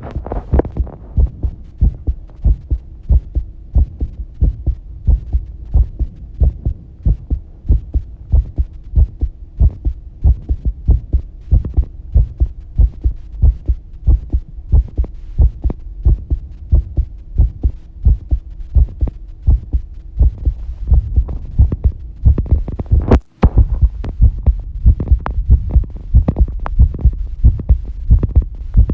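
A human heartbeat picked up close to the chest, beating regularly at about three beats every two seconds. A faint steady hum lies under it for most of the time, and there is a brief dropout with a click about 23 seconds in.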